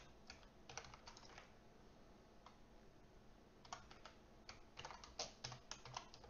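Faint computer keyboard typing: short runs of quick keystrokes with a pause of a couple of seconds in the middle.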